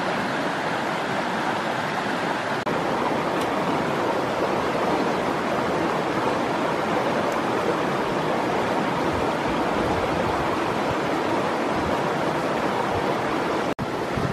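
Steady rush of stream water running over rocks, dipping out briefly near the end.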